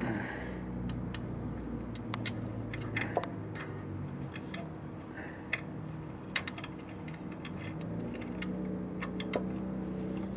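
Irregular small metallic clicks and taps from handling a motorcycle throttle cable and its linkage at the carburetor, over a steady low hum. The sharpest click comes about six seconds in.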